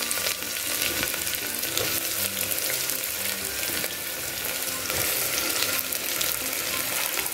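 Sliced onions sizzling steadily as they are dropped by hand into hot coconut oil in a pressure cooker.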